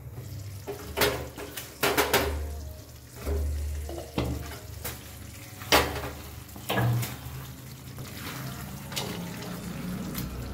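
A spatula stirring and scraping thick chicken curry in a metal pan on a gas stove, with sharp knocks against the pan every second or so and the gravy sizzling and bubbling over a high flame.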